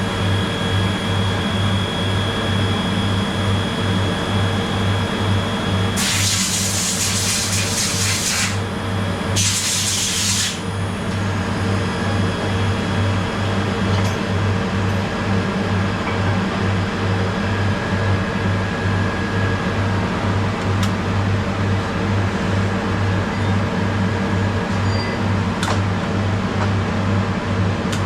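TIG welder switched on, giving a steady, loud electrical buzz with a slight pulse. Two bursts of hiss come in about six and nine seconds in.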